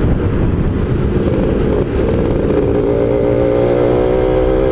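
Suzuki Tornado GS motorcycle engine pulling under full throttle in fourth gear. Wind buffets the microphone for about the first two seconds, then the engine note holds steady without climbing: a sluggish, heavy pull that the rider calls not responsive.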